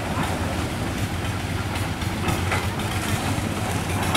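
Tracked rice combine harvester's diesel engine running at a steady low idle.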